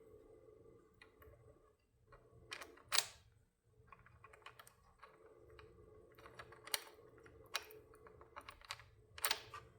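Scattered small clicks and taps of screws and a Phillips screwdriver being fitted into the back of a miter saw handle, over a faint steady hum.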